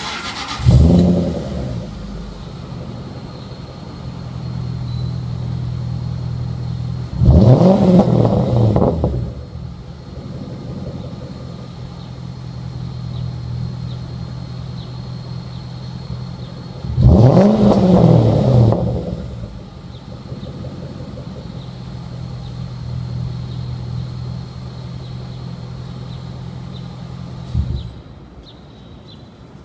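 2000 Jaguar XJ8's V8 through a full aftermarket exhaust (long-tube headers, X-pipe, straight pipes into Mina Gallery mufflers), heard at the tailpipes: a deep, throaty idle broken by three free revs that climb and fall back to idle, then the engine stops near the end.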